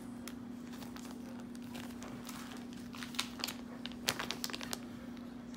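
Plastic lure bags crinkling as they are handled and swapped, with a cluster of sharper crackles from about three to four and a half seconds in. A steady low hum runs underneath.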